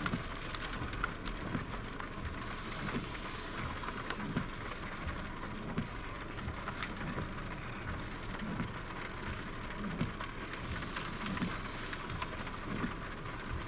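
Steady rain falling, with many scattered sharp drop hits.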